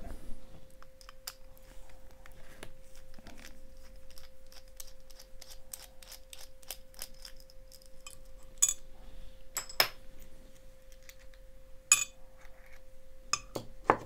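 Small metal clicks and clinks from an aluminium padlock being taken apart by hand, its screw undone through the shackle hole and the shackle and brass core taken out. It begins as a run of light ticks and has about four louder clinks in the second half. A faint steady hum sounds underneath.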